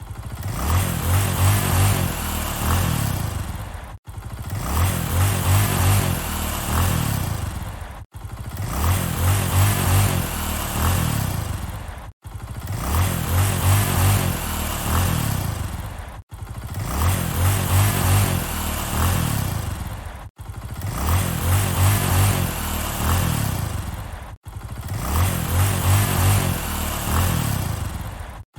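Motorcycle engine revving up and falling back in a pulsing rhythm. The same four-second recording repeats as a loop, with a brief dropout about every four seconds.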